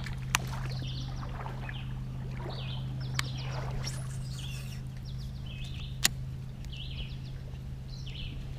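A steady low motor hum throughout, with short bird chirps repeating every second or so and three sharp clicks.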